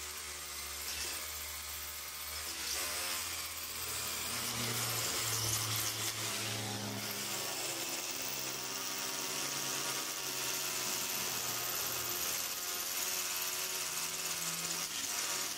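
Corded electric drill boring into a concrete post, running steadily with its pitch rising and falling a little as the bit loads; it is drilling anchor holes for a roll-up door's steel side guide.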